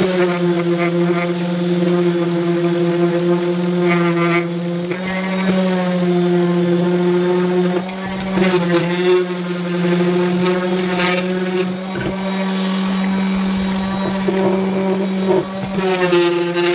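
Parkside random orbital sander running at a steady pitch while sanding a small wooden cut-out, a loud motor hum that dips briefly near the middle as the sander is set aside and the piece turned, then goes back on the wood.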